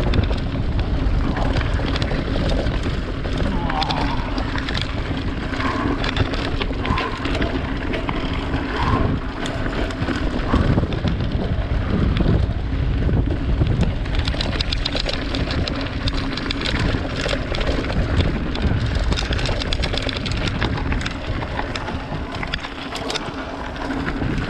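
Mountain bike rolling fast down a loose, rocky gravel track: tyres crunching over stones and the bike rattling over the bumps, with wind rumbling on the microphone.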